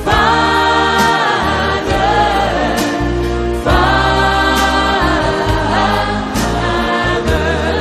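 Gospel choir music: voices singing long held notes over a steady bass line and light drum strokes.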